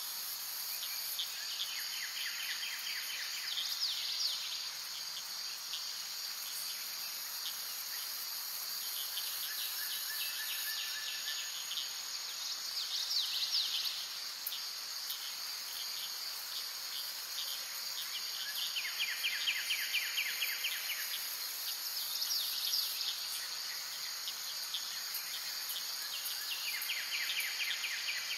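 A steady chorus of insects such as crickets, with groups of short chirping trills and brief calls recurring every several seconds.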